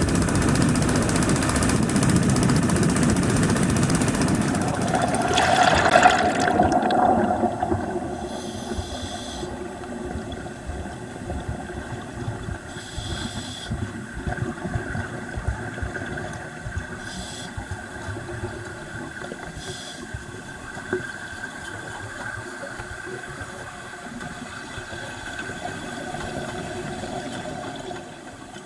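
Water churning loudly as a scuba diver enters the sea from a boat, then muffled underwater ambience with a faint steady hum. Short hissing bursts of exhaled regulator bubbles come every few seconds.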